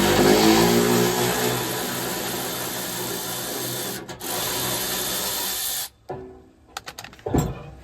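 Handheld power tool running hard on the old exhaust, loudest at the start, with a brief break about four seconds in and stopping about six seconds in. A few short metallic knocks follow near the end.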